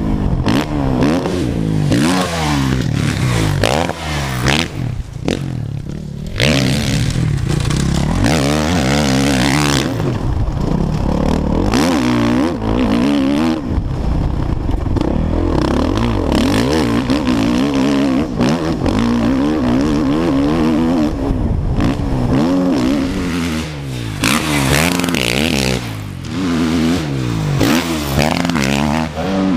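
A 2015 Suzuki RM-Z450's single-cylinder four-stroke motocross engine revving hard and falling back again and again as the bike accelerates, shifts and backs off around the track, with rushing wind noise on the helmet camera.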